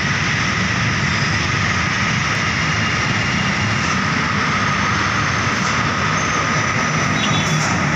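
Steady noise of heavy road traffic, buses and trucks running past with a low rumble and a faint steady whine.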